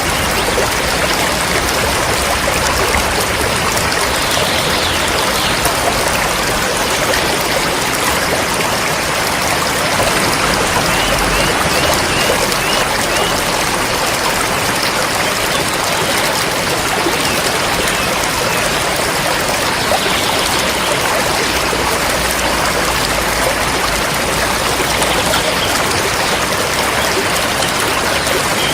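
A river flowing steadily: a continuous, even rush of running water.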